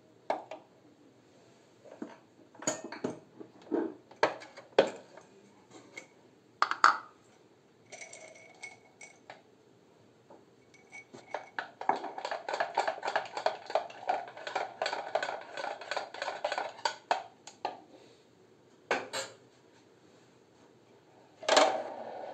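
Small porcelain coffee cups, saucers and a coffee pot being handled on a tray: scattered clinks and knocks, then a rapid run of clinking for about five seconds midway, like a spoon working in the pot, and a louder knock near the end.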